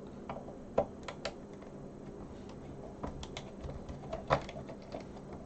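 Scattered sharp clicks and light knocks of a screwdriver and the plastic case of a Sinclair QL computer being handled while its case screws are taken out, a few early on and a cluster about three to four and a half seconds in.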